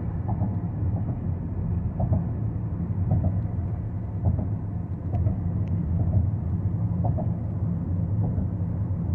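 Steady low rumble of a Toyota Venza hybrid driving along, heard inside the cabin: road and drivetrain noise while cruising at low engine revs.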